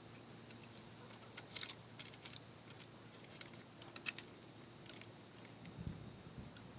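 Light, scattered clicks and ticks over a steady, high-pitched insect chirring.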